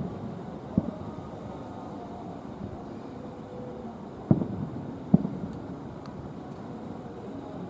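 Aerial fireworks shells bursting in the distance: a sharp boom at the start and another under a second in, then two louder booms about four and five seconds in, each dying away quickly over a steady outdoor background hum.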